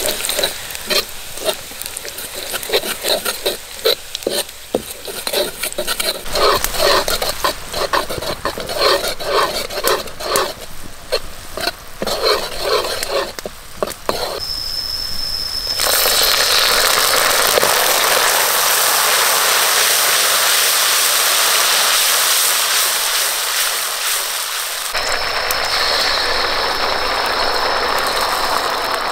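Minced garlic sizzling in hot oil in a wok while a metal ladle scrapes and stirs it in quick strokes. About halfway through the scraping stops and the frying becomes a steady, loud hiss, with a thin high whine at times.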